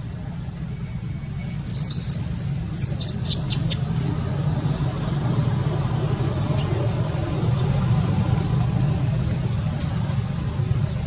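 Steady low hum, with a quick run of high-pitched squeaks or chirps about two to three and a half seconds in.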